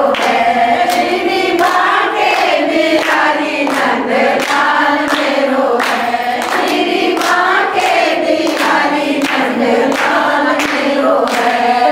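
A group of women singing a devotional bhajan together in unison, with steady handclaps keeping time.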